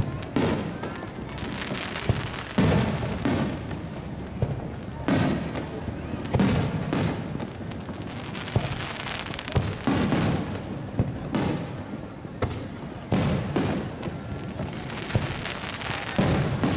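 Aerial fireworks shells bursting: about a dozen booms at irregular intervals, each leaving a short echoing tail, with crowd voices in between.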